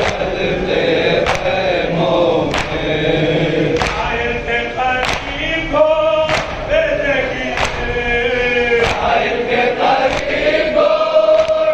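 A group of men chanting a noha, a Shia mourning lament, in unison. A sharp slap of hands on chests (matam) falls in time about every second and a quarter.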